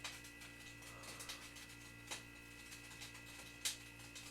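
Light clicks and knocks of kitchen handling, the sharpest about three and a half seconds in, over a steady electrical hum.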